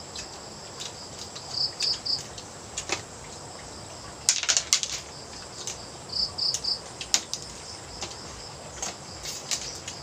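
Insects chirping steadily at a high pitch, with groups of three louder chirps twice, over scattered sharp clicks and knocks; a quick cluster of clicks about four seconds in is the loudest.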